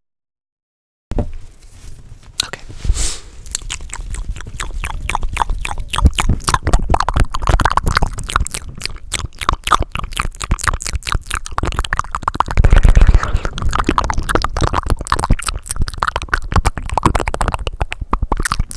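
Fast, aggressive ASMR mouth sounds and hand sounds: a dense run of rapid clicks and pops, starting after about a second of silence, with a louder, deeper stretch about twelve to thirteen seconds in.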